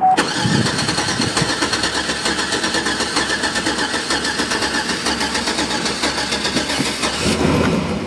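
Starter motor cranking the 2008 Chevy Tahoe's V8 in clear-flood mode, throttle floored so it does not fire, for about seven seconds. It winds down near the end. The cadence of the cranking is the sign of a compression problem.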